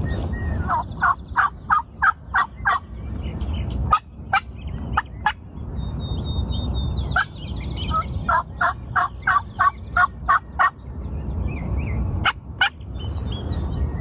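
Wild turkeys calling: two runs of evenly spaced notes, about three a second and each lasting around two seconds, one near the start and one past the middle, with a few sharp single notes between them.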